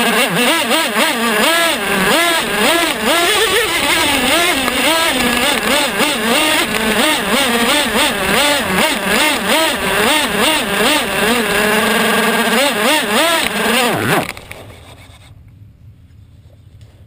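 Traxxas T-Maxx nitro RC truck's small two-stroke glow engine, heard from a camera mounted on the truck, revving up and down over and over. About fourteen seconds in the pitch drops sharply and the engine stops.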